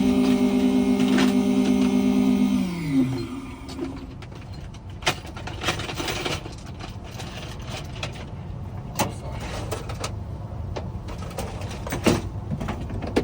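Key-cutting machine's motor running with a steady hum, then spinning down about two and a half seconds in, its pitch falling as it stops. After that, scattered clicks and knocks.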